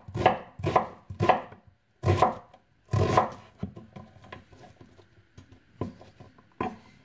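Chef's knife cutting an onion on a wooden cutting board, knocking on the board with each stroke. The strokes come about two a second at first, then turn into quicker, lighter chops in the second half.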